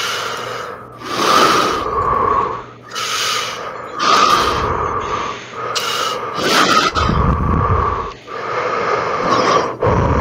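Loud, raspy gasping breaths, drawn in and pushed out over and over, roughly one every second or so.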